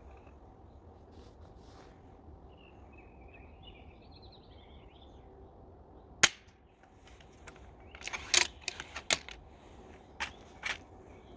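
EK Archery Cobra-system pistol crossbow firing once with a single sharp snap about six seconds in. Then comes a quick run of loud mechanical clacks and two more clicks as the crossbow is cocked and the next bolt is pushed down from the repeating magazine. Birds chirp faintly early on.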